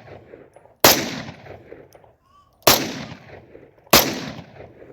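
Locally made TT-30 (Tokarev-pattern, .30 bore) pistol fired in single shots: three sharp reports about one and a half to two seconds apart, each trailing off over the next second.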